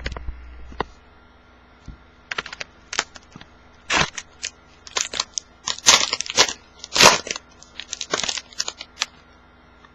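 A 2011 Upper Deck football card pack's wrapper crinkling and tearing open, and the cards being handled. It is a run of irregular crackles and snaps from about two to nine seconds in.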